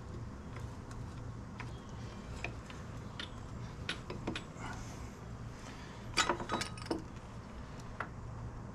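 Light metallic clicks and clinks of a motorcycle rear brake caliper and its pads being jiggled onto the disc rotor to seat the pads, with a cluster of sharper clinks about six to seven seconds in. A low steady hum runs underneath.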